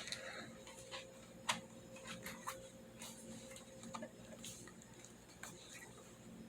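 Faint, irregular light clicks and taps from hands handling a tablet in its case, over a low steady hum.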